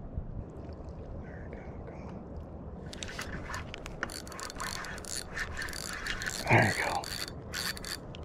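Spinning fishing reel clicking rapidly as it is worked against a hooked fish, starting about three seconds in, with a brief vocal sound about two-thirds of the way through.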